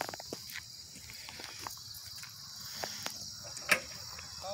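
Steady high-pitched chorus of insects singing in the grass, with a few light scattered clicks and one sharper click about three-quarters of the way through.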